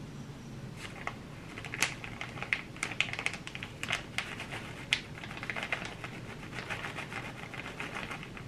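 Plastic bag of shredded cheese crinkling and crackling in the hands as the cheese is shaken out, with a few sharper clicks among the rustle.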